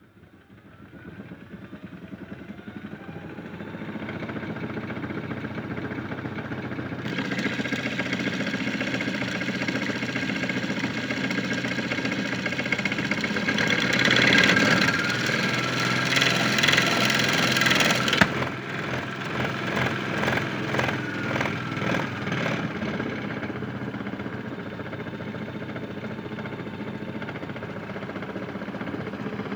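Hotpoint Ultima WM75 toy washing machine, freshly lubricated, running its small electric motor and drum. It starts up with a rising whine over the first few seconds and then runs steadily. About 18 seconds in it changes to a rattlier, pulsing sound.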